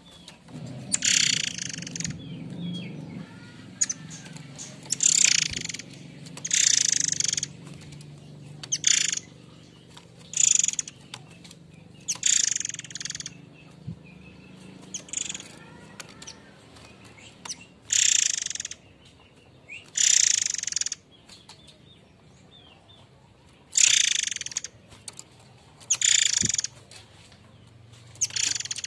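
Murai air mancur bird giving its harsh, rasping call: about a dozen short screechy calls, each roughly half a second long, at uneven gaps of one to three seconds.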